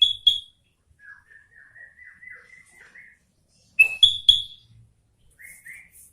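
Caged kutilang (sooty-headed bulbul) singing: a loud three-note chirping phrase at the start and again about four seconds in, with a softer run of quick chirps in between and two short notes near the end.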